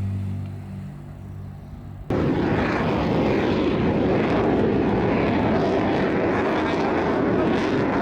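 Steady jet aircraft engine noise that cuts in abruptly about two seconds in, after a low steady hum.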